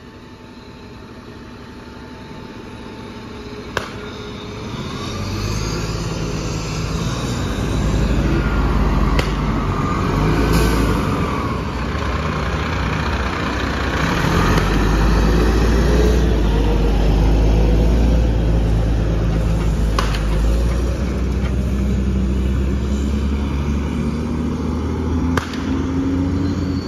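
Heavy diesel engines of fire trucks (an engine and a ladder truck) rumbling as they drive past, growing louder over the first several seconds as the trucks come close. Near the end one engine's note rises as it pulls away. A few short sharp clacks are heard along the way.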